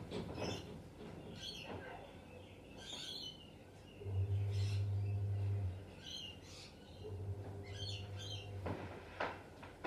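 Wild birds calling with short, repeated chirps. A low steady hum comes and goes twice, each time for a second or two.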